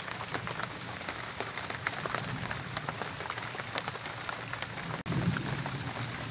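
Heavy rain falling on banana leaves, a steady hiss with many separate drops striking close by. The sound cuts out for an instant about five seconds in.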